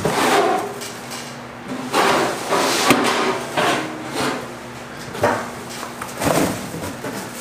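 Cardboard packaging rustling and scraping in several bursts as grill parts are pulled out of the box, with a sharp knock about three seconds in.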